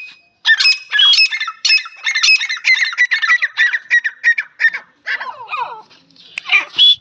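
Grey francolins calling: a fast run of harsh, high, squeaky notes, several a second, that eases into a few lower falling notes after about five seconds, then one loud burst near the end.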